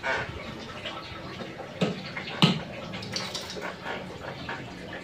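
A towel rubbing over a wet dog's coat, a steady rustling, broken by two short sharp sounds about half a second apart near the middle.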